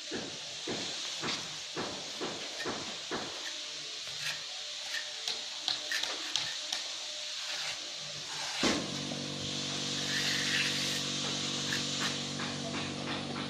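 Mason's trowels scraping and tapping on wet mortar and concrete, a run of short irregular scrapes and taps. About nine seconds in, a steady engine hum starts and runs on under them.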